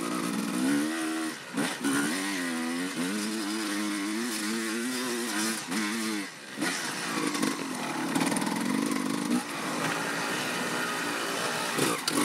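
Dirt bike engine being ridden, its pitch rising and falling with the throttle, with a few brief dips where the throttle closes.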